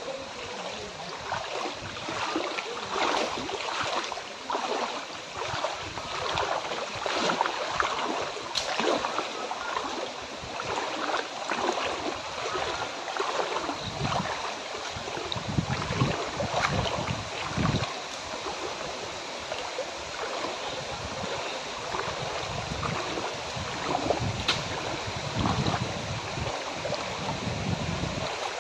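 Muddy floodwater splashing and sloshing in irregular repeated strokes, about once or twice a second, as someone moves through it.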